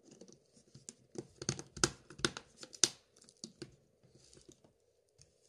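Plastic clicks and snaps as the Samsung Galaxy S3's mid-frame is pressed down onto the phone and its clips snap into place. A cluster of sharp clicks comes between one and three seconds in, then fainter ones.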